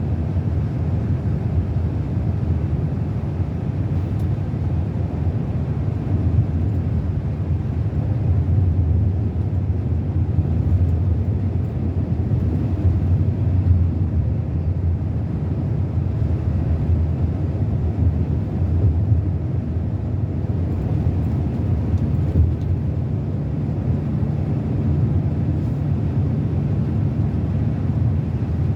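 Scania K360 coach's rear-mounted diesel engine running steadily, a deep low drone that grows a little louder through the middle and then eases back.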